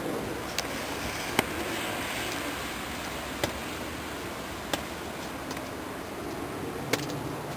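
Steady hiss of a wet snowfall, broken by five sharp ticks at irregular intervals.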